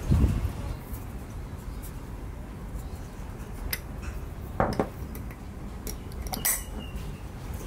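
Kitchen bowls and utensils being handled: a dull thump at the start, a knock about halfway through, and a sharper clink near the end, with little in between.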